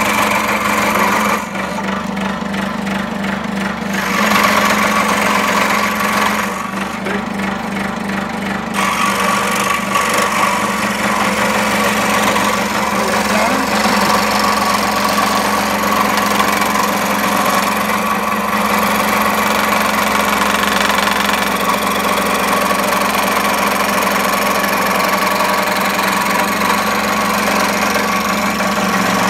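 Bench-top electric scroll saw (power fret saw) running steadily, its fine blade reciprocating as it cuts a curve through a piece of pine.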